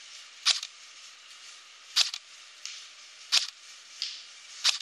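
Tokyo Marui VZ61 Scorpion airsoft electric pistol firing single shots through a chronograph: four sharp snaps, about a second and a half apart.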